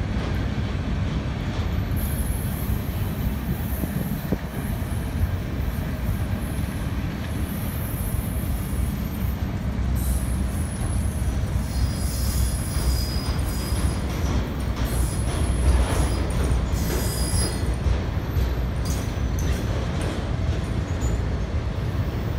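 Freight train of autorack cars rolling past close by: a steady low rumble of wheels on rail. High-pitched wheel squeal comes and goes, strongest in the middle stretch.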